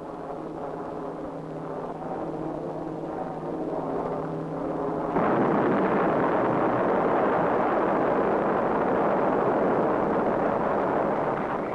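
Propeller bomber's piston engines droning, steadily growing louder. About five seconds in, a sudden, loud, sustained explosion rumble takes over: the atomic bomb blast. It eases slightly near the end.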